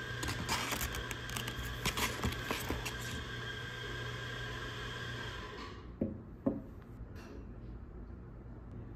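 Paper bag and packaging handled, with a run of rustles and small clicks, then two light knocks about six seconds in.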